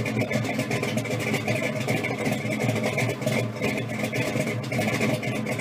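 An engine idling steadily with an even, rhythmic pulse.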